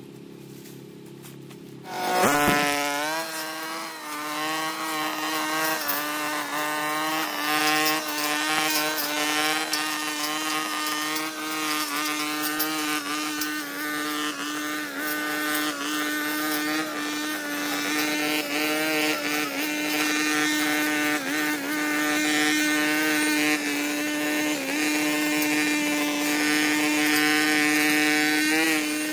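Petrol brush cutter engine running steadily at high speed while cutting grass, coming in abruptly about two seconds in, with many small ticks over it.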